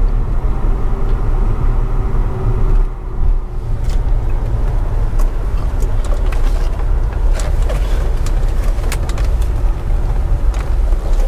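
Low, steady engine and road rumble inside a Land Rover SUV's cabin as it rolls slowly through a parking lot, with scattered faint clicks and knocks.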